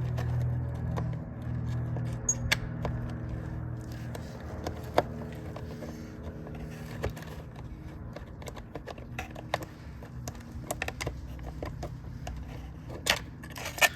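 Small metal latch parts and hand tools clicking and tapping irregularly as a spring and a tiny 4-40 screw are worked into a Cessna baggage door latch, with a few sharper clicks standing out. A low hum sits under it during the first few seconds.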